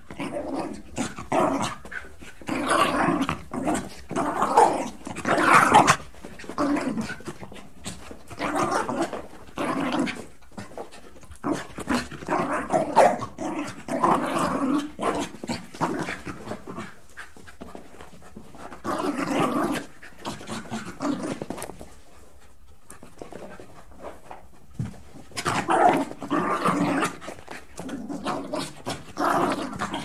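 Dogs barking in repeated runs of short barks, with a brief lull about three quarters of the way through.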